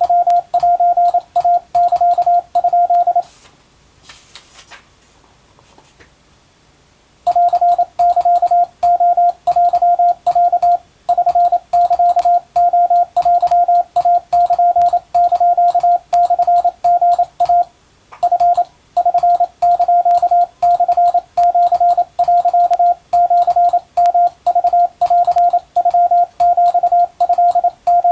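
Morse code as a single-pitched beeping tone keyed on and off in dots and dashes, Japanese wabun code being sent. It pauses for about four seconds near the start, then keys on steadily with two short breaks.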